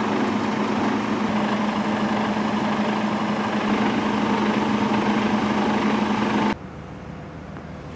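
Sisu timber truck's diesel engine idling steadily, with a constant low hum. The sound cuts off abruptly about six and a half seconds in.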